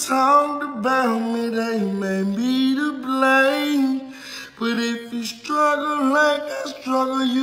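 A man singing slow, drawn-out notes that bend and waver, with no beat behind him and a short break a little past the middle.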